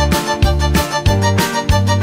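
Instrumental intro of a Karen pop song: band music with a steady beat and a melodic lead, before the vocals come in.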